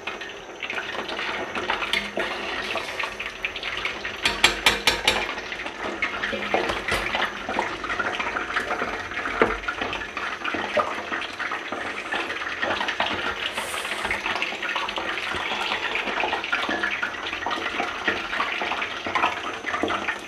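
Chicken deep-frying in hot oil in a steel pan: a steady crackling sizzle, with a short run of sharp clicks about four seconds in.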